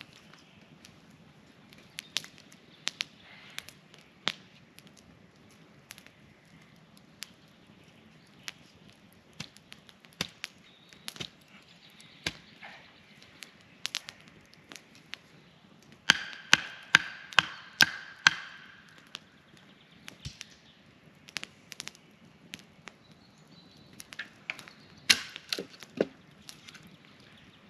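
Sharp, irregular knocks of a tool chopping wood. Past the middle comes a quick run of about eight harder strikes that ring briefly.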